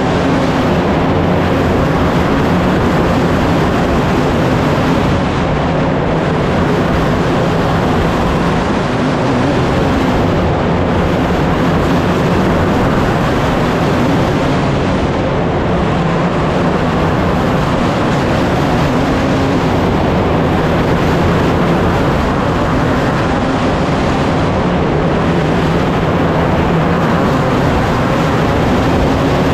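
Race car engine running hard and steady at speed, loud and continuous.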